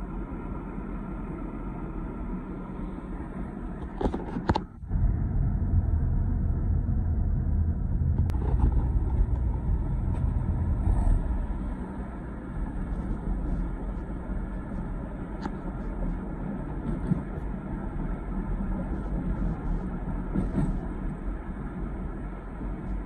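Road and engine noise heard inside a moving car's cabin: a steady low rumble. It cuts out briefly about five seconds in, then comes back louder for several seconds before settling.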